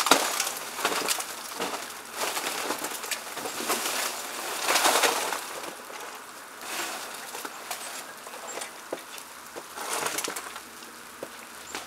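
Outdoor thaw after an ice storm: meltwater dripping and ticking off ice-coated surfaces, with a few louder crunching rustles, about a second in, near five seconds and near ten seconds, from footsteps on icy snow.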